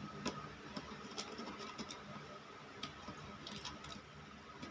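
Scattered small clicks and scrapes of a screwdriver on a solar charge controller's screw terminals and of its cable leads being handled, some in quick little clusters, over a faint steady hum.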